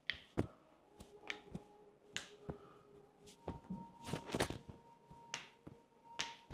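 Joints popping and cracking under chiropractic adjustment: an irregular series of about fifteen sharp cracks and clicks, some in quick clusters.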